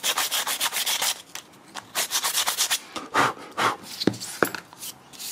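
Sandpaper rubbed quickly back and forth over the blade of a 3D-printed PLA propeller, smoothing off the rough print layers and ridges. There are two runs of fast even strokes, then a few slower scrapes and a couple of light knocks near the end.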